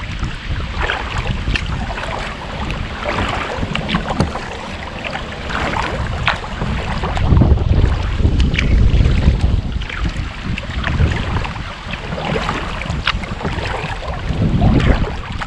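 Wind buffeting the microphone of a camera mounted on a kayak's bow, in a low rumble that is strongest about halfway through. Small irregular splashes of water lap against the kayak as it moves through choppy water.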